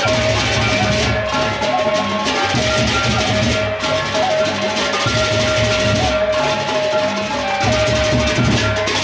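A Lombok gendang beleq ensemble playing: large barrel drums beaten in a driving rhythm under a dense, fast clashing of many hand cymbals, with a held melodic tone running over the top.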